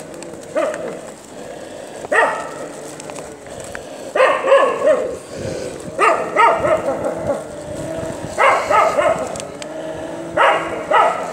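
Stray puppies yelping and whining: short high calls in clusters, roughly every one to two seconds.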